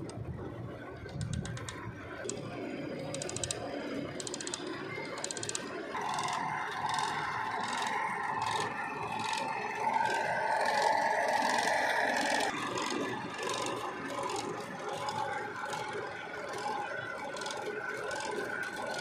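A hand-cranked cotton candy machine running. The wheel drive rattles with a rhythmic clicking about twice a second, and the spinning head whirs, louder for several seconds in the middle.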